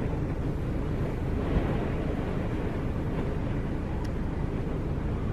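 Steady low rumble of roadside outdoor noise, with wind on the microphone and traffic from the nearby freeway blending into one even roar. There are no distinct events and no bleating.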